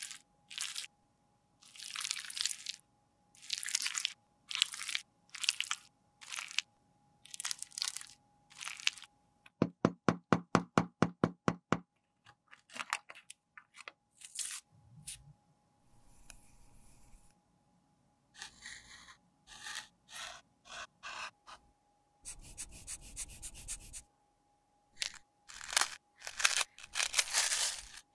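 Close-up scraping and crunching in short bursts with gaps between them. At the start a tool scrapes chocolate and candy sprinkles off a pressed blush pan. Midway an alcohol-pad packet is torn open, and near the end a metal spoon scrapes up crumbly pressed powder. About a third of the way in there is a quick run of about ten evenly spaced pitched clicks.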